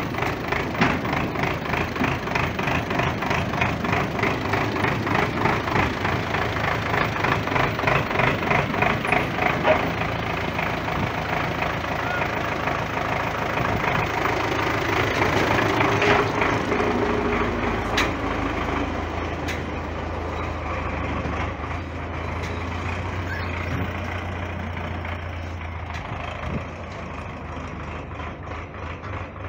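MTZ-80 tractor's four-cylinder diesel engine running close by. It pulses unevenly for about the first ten seconds, then settles into a steadier, deeper hum.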